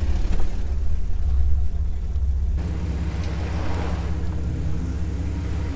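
Off-road vehicle's engine running with a steady low rumble, a little quieter from about two and a half seconds in.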